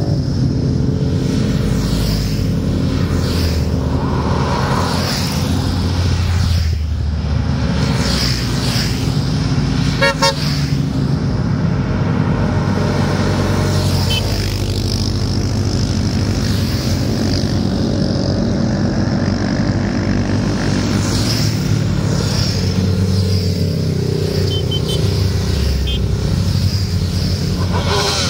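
A procession of motorcycles, with a quad bike among them, riding past one after another, their engines running loud and continuous and swelling as each one passes. A horn toots once about ten seconds in.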